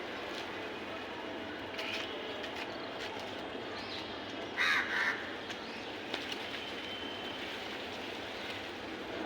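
Crows cawing: a faint caw about two seconds in, then two loud caws in quick succession about halfway through, over a steady background hiss.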